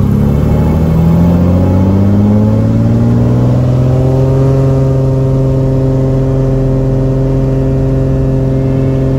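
Single-engine propeller plane's engine and propeller coming up to takeoff power: the pitch rises over the first four seconds, then holds steady at full power for the takeoff roll. Heard from inside the cockpit.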